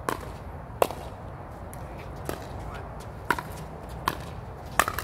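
A pickleball rally: paddles striking the plastic ball, with the ball bouncing on the court, heard as six sharp pops at uneven intervals of about a second over a steady low background rumble.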